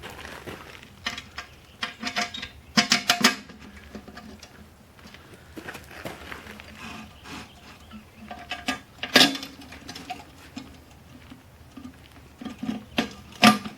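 Irregular knocks, clatters and rattles of hard objects being handled, with a few sharp clanks; the loudest come around three, nine and thirteen seconds in.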